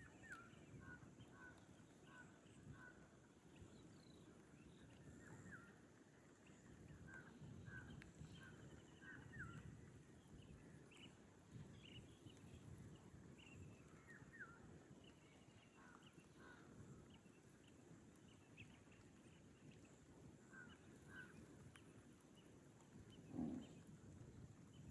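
Faint, scattered short bird chirps over a low outdoor rumble, with one brief louder sound near the end.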